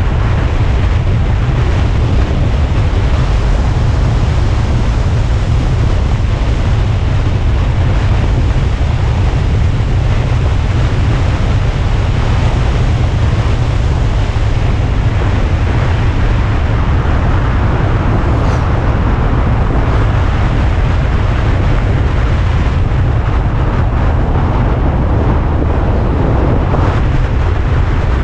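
Loud, steady wind noise buffeting the microphone over the road and engine noise of an Alfa Romeo Spider on the move.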